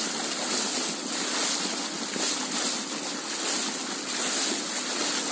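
Water rushing along a moving boat on a river, with wind buffeting the microphone.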